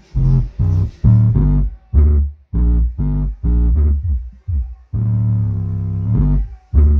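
Bass-heavy music played loudly over a large home speaker driven by an MB Quart 4-channel car amplifier under test: a run of short, separate notes with one longer held note near the end.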